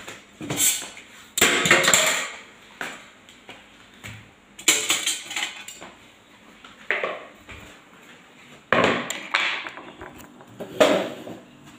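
Kitchen clatter: dishes, pots and utensils being handled and set down, in irregular sharp knocks every second or two.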